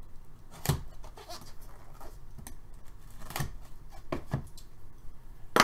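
Utility knife slitting the seal of a cardboard hobby box, then the box being handled, with a few sharp clicks and knocks, the loudest near the end.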